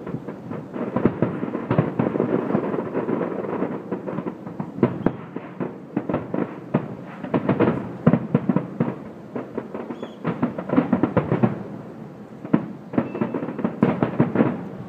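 Fireworks display: dense, continuous crackling and popping of many bursting shells, with sharper bangs scattered all through.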